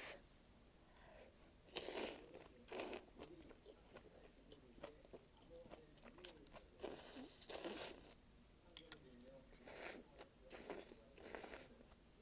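A person eating malatang close to the microphone: chewing and biting with crunchy mouth sounds in short bursts every second or two, with a couple of sharp clicks in the middle.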